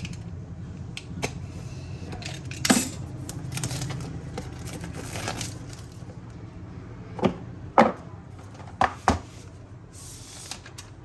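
A smartphone's retail box and packaging being handled: several sharp taps and clicks, two close pairs of them in the second half, with some soft rustling, over a low steady hum.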